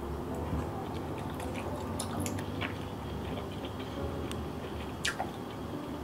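Scattered small clicks, clinks and soft squishing of food and utensils being handled, with the sharpest click about five seconds in.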